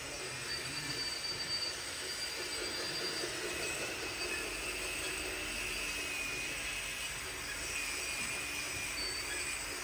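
Small electric motors and gearboxes of radio-controlled construction models whining steadily, with thin high tones that drift slowly up and down in pitch.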